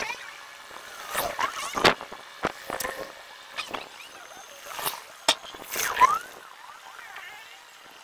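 Street sound from an outdoor webcam, chopped into short, abruptly cut fragments by time-lapse: a string of brief sharp noises and short voice-like calls, over a dozen in eight seconds, with no steady background.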